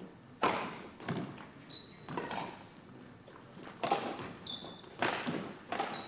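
Badminton rally in a sports hall: about six sharp racket strikes on the shuttlecock at uneven intervals, each followed by a short echo. Brief high squeaks of court shoes on the wooden floor come twice, about a second and a half in and again near four and a half seconds.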